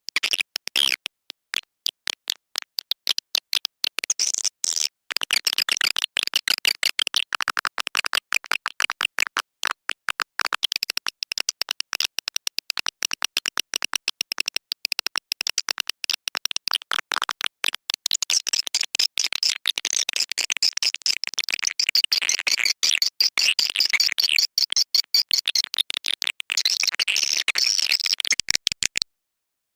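Swiftlet lure-call recording: a dense run of rapid twittering chirps and clicks of edible-nest swiftlets, the sound played in swiftlet houses to draw the birds in to roost and nest. It cuts off suddenly near the end.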